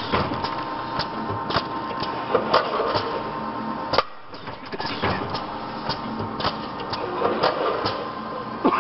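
Mini doypack pouch packaging machine running: a steady mechanical hum with a held tone, broken by repeated sharp clacks about once a second from its working parts.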